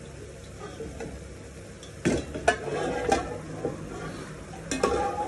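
Food stir-frying in a hot pan: a metal utensil scraping and knocking against the pan over a frying sizzle, with several sharp scrapes about two seconds in and another near the end.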